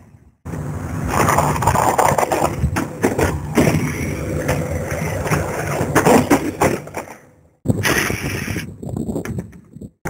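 A cardboard box of pleated air filters rustling and knocking as it is handled and carried, in several short clips joined by abrupt cuts.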